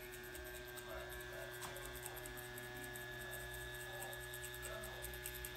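Permanent-makeup machine pen giving a faint, steady electric hum as its needle works the eyebrow.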